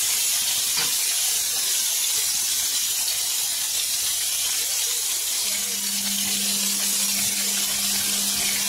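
Strips of raw beef sizzling in hot oil in a frying pan, a steady high hiss. The meat was not squeezed dry, so it is giving off water into the oil. About five and a half seconds in, a low steady hum joins.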